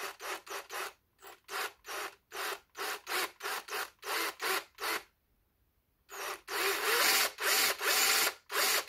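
Cordless drill spinning the freshly rebuilt oil pump of a Dnepr MT 10-36 motorcycle engine to test it, run in short trigger blips about three a second, then after a pause of about a second in longer runs with a motor whine that rises and falls. The test shows the pump working.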